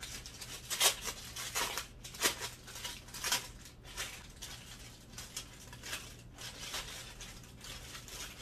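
Packaging crinkling and rustling as a small wallet is handled. Sharp irregular crackles come in the first few seconds, then softer rustling.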